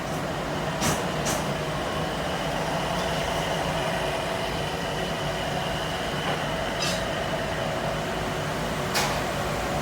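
Steady mechanical running noise with a faint hum, broken by a few sharp clicks or knocks: two about a second in, one near seven seconds and one near the end.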